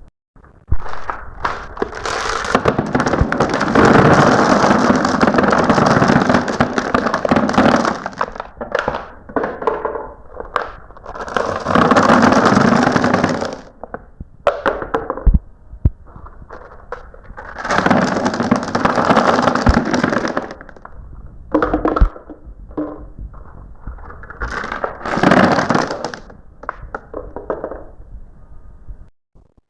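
Glass marbles rolling and clattering down a marble run, in several rattling bursts a few seconds long, with single clicks and knocks in between.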